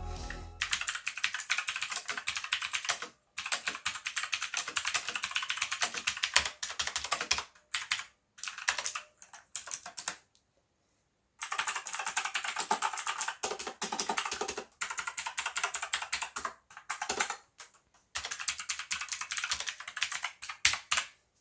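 Rapid typing on Sandberg FireStorm and Hellstorm mechanical keyboards, both with clicky Outemu Blue switches: dense runs of sharp key clicks. There is a short pause about ten seconds in, between the two keyboards.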